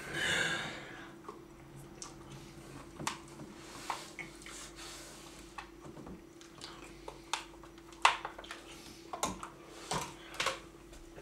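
Plastic spoons clicking and scraping against plastic sundae cups in scattered, irregular clicks, the sharpest about eight seconds in and a cluster near the end. A breathy exhale sounds in the first second over a faint steady hum.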